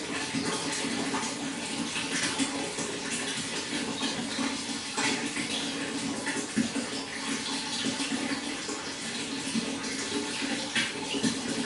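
Steady running water, splashing continuously with many small irregular splashes.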